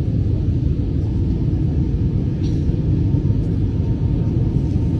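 Steady low rumble of a passenger airplane's cabin noise as the plane comes in to land.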